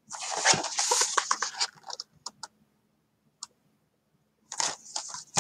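Paper pages of a picture book rustling as the book is handled and held up, followed by a few light clicks and taps, then a second, shorter rustle near the end.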